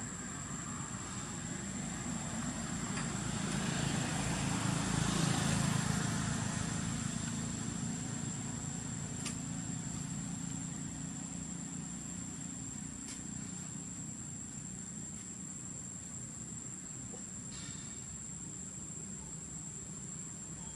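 A motor vehicle passing by: a low engine rumble swells to a peak about five seconds in, then eases into a steady background hum. A thin, steady high-pitched tone runs under it.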